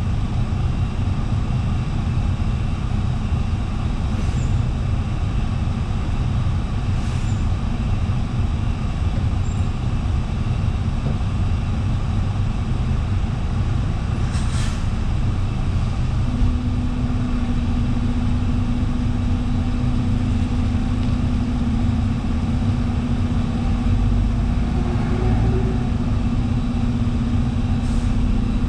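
Scania city bus diesel engine idling steadily, heard from inside the bus, with a few brief hisses and a steady low hum that joins about halfway.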